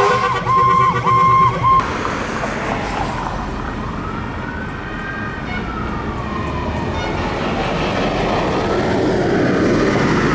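Fire engine sirens over vehicle and road noise. First comes a pulsed horn-like tone with short breaks. Then, after an abrupt change about two seconds in, a siren wail rises slowly, falls away over several seconds, and begins rising again near the end.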